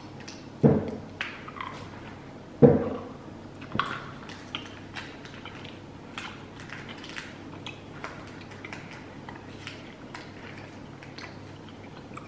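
People chewing soft fruit-chew candy (Maoam Bloxx) close to the microphone, a steady run of small mouth clicks, with two louder thumps in the first three seconds.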